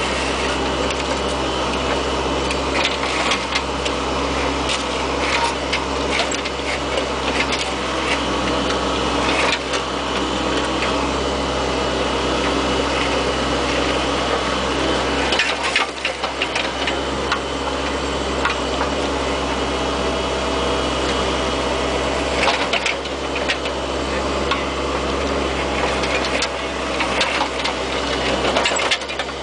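Bobcat 430 ZHS mini excavator's diesel engine running steadily, with irregular knocks and rattles over it.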